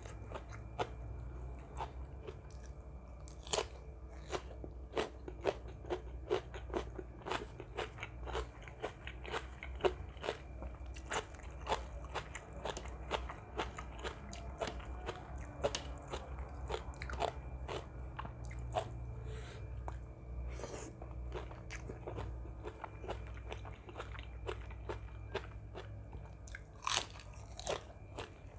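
Close-up sound of a person chewing and biting crunchy food, a seafood papaya salad: a rapid, irregular string of crisp crunches and clicks, with a steady low hum beneath.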